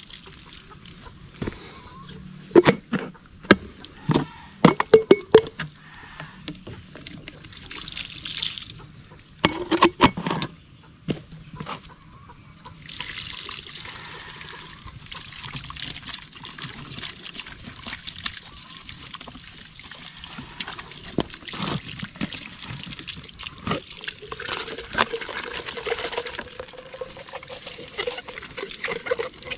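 Water trickling from a plastic drum's tap into plastic poultry waterer jars, over a steady high hiss. Hollow plastic knocks and clatter come in two bursts, a few seconds in and again around ten seconds in, as the jars are handled.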